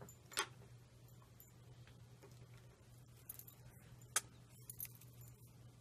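Faint clicks and taps of stamping marker pens being handled, the sharpest about four seconds in as a blue marker is taken up, over a low steady hum.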